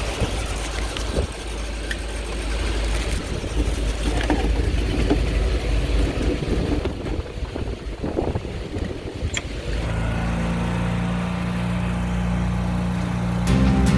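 1980 Chevy chip truck driving: engine and road rumble. Background music comes in over the last few seconds.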